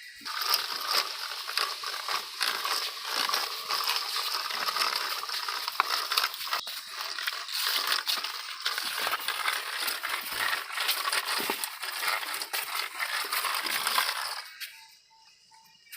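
Plastic toy vehicle rolling across a hard surface, its small wheels and body giving a continuous clattering, scraping rattle that stops near the end.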